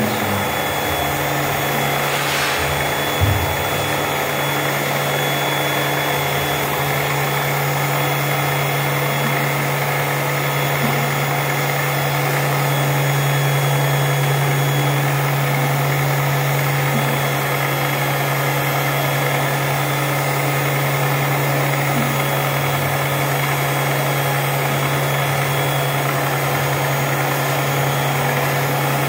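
Electric drywall sander running steadily, a constant motor hum that does not change.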